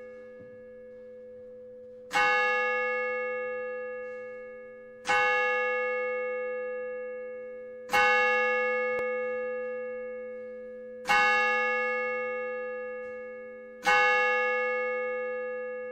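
A single bell struck five times, about three seconds apart, each strike ringing on and slowly fading before the next: a bell tolled to open a worship service.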